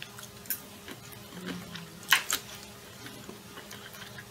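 A person eating with a fork: small clicks of chewing and cutlery, with two sharper clicks close together about two seconds in. A steady low hum runs underneath.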